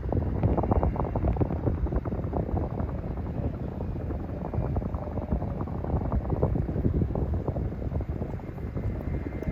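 Bell 212 helicopter running close by, its two-bladed main rotor giving a steady, rapid chopping pulse over a dull turbine rumble.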